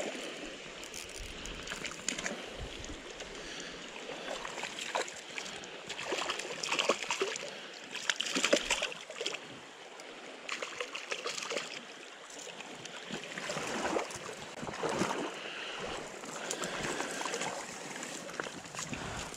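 Water of a small stream running and gurgling over rocks, with scattered short knocks and a few louder swells.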